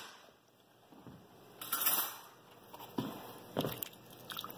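A spoon working chopped onions down into the water of a slow cooker: near silence at first, then a brief rustling scrape about two seconds in and a few soft knocks and scrapes after it.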